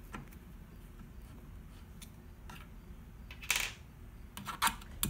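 Handling noise from working on a speaker cabinet: a few faint clicks and one short scrape about three and a half seconds in, with a few more clicks near the end, over a low steady hum.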